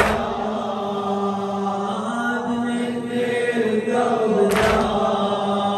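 Men chanting a Shia mourning lament (latmiyya) in long-held, steady notes. The crowd strikes their chests in unison twice, once at the start and again about four and a half seconds in, each a sharp slap over the chant.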